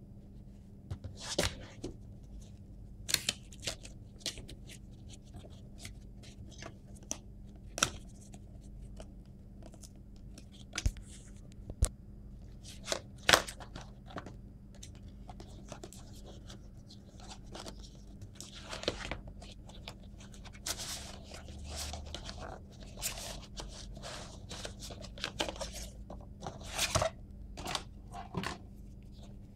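Cardboard product box being opened and handled: an irregular string of sharp taps and clicks, with stretches of rustling and scraping of cardboard and packing, over a steady low hum.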